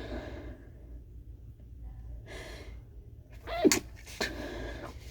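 A stifled sneeze in the middle of a sneezing fit: a sharp breath in, then, a little past halfway, a short catch falling in pitch and a muffled, held-in sneeze burst, followed by a breathy exhale.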